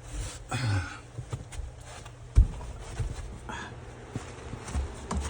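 A few knocks and clicks, the loudest a single sharp knock about two and a half seconds in, over a low steady hum, with a brief whine-like sound near the start.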